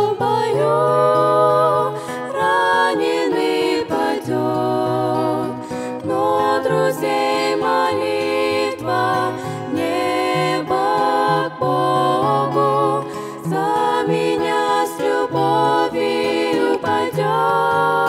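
Three women singing a Russian-language worship song together, accompanied by a strummed acoustic guitar.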